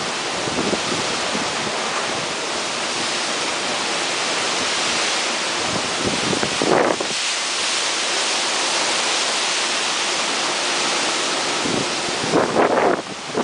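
Heavy rain pouring down in a strong wind, a steady loud hiss. Louder gusts buffet the microphone about seven seconds in and again near the end.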